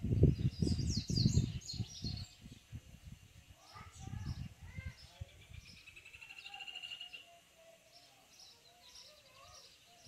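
Yellow-bellied seedeater (papa-capim) singing quick high phrases, with a fast trill in the middle that rises slightly in pitch. A loud low rumble covers the first two seconds.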